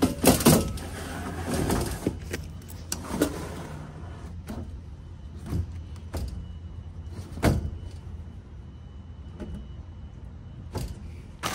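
Sheet-metal clattering and scraping as a 9 kW electric heat kit is worked into the heater section of a Trane Precedent package unit, busiest in the first few seconds, then a few separate knocks. A steady low hum runs underneath.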